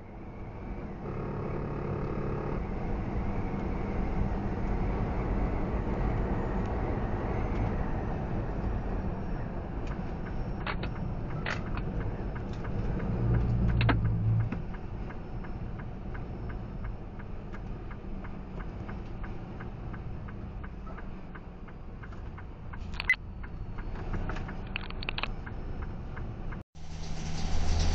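Steady engine and road rumble inside a semi truck's cab at highway speed. It grows louder about halfway through, and a few sharp knocks come and go.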